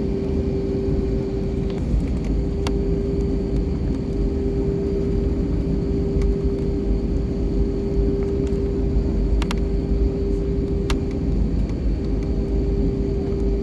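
Airbus A320 airliner's engines running with a steady low rumble and a constant mid-pitched hum, a few faint clicks on top.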